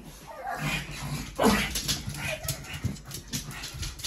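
Pet dogs barking in short calls, the loudest about a second and a half in: a dog guarding the food bowls, barking to keep the cat away.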